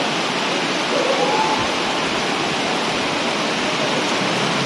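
Heavy rain falling, a loud, steady, dense hiss of downpour.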